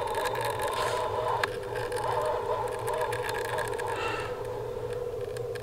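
Spinning reel's drag giving line with a steady buzzing whine as a large lake trout runs against it, the tone easing off slightly after about three seconds.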